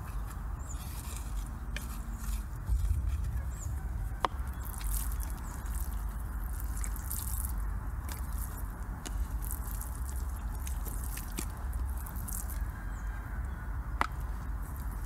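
Open wood fire crackling, with a few sharp pops, over a steady low rumble.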